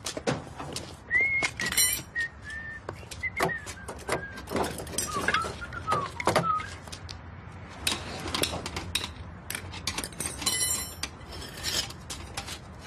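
Someone whistling a short wandering tune that stops about halfway through. Metal hand tools clink and knock on a workbench throughout, with a busier run of clinks near the end.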